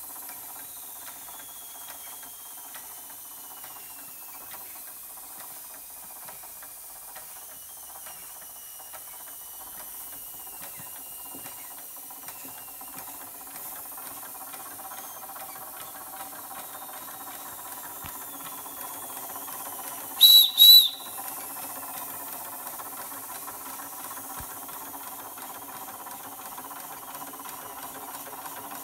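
Josef Falk 143/2 toy steam engine hissing steadily as steam builds, with faint ticking from the running engine and a thin tone slowly falling in pitch. About 20 seconds in, its steam whistle gives two short, high, loud toots.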